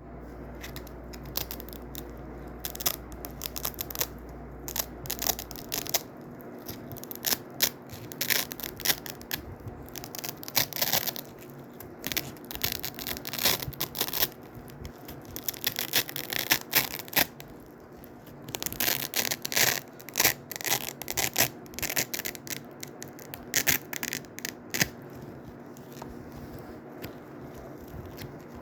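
Strips of hook-and-loop fastener (blue hook, red loop) ripped apart again and again in a crunchy, crackling tearing. The rips come in irregular runs, some quick and some drawn out over a second or more, with brief pauses between.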